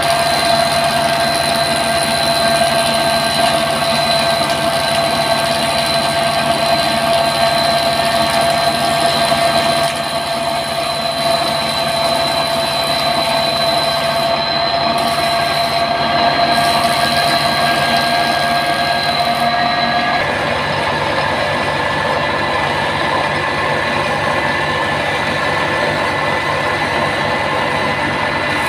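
Belt-driven wood thickness planer running, powered by a small engine: a steady mechanical drone with high, even whining tones from the spinning cutter head and drive. About two-thirds of the way through, the whine shifts to a different pitch.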